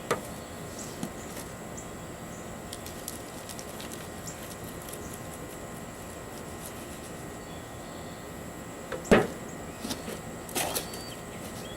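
Digging in garden soil while harvesting potatoes: a few light knocks and scrapes, then one sharper thud about nine seconds in and a couple more knocks soon after, over a steady outdoor hiss.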